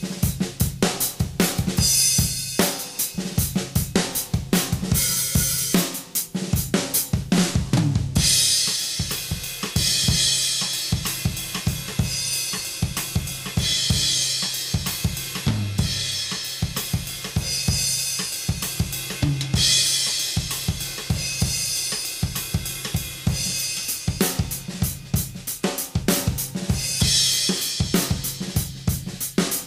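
Acoustic drum kit with birch shells (Tama Starclassic toms and kick, Mapex birch snare, Zildjian and Sabian cymbals) played in a steady groove of kick, snare and hi-hat, recorded with a single large-diaphragm condenser microphone. Fills run down the toms about seven and fifteen seconds in. From about eight seconds on there are long stretches of cymbal wash.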